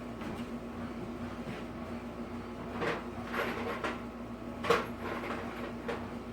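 A handful of short knocks and clicks from screws and tools being handled, the loudest about three-quarters of the way through, over a steady low hum.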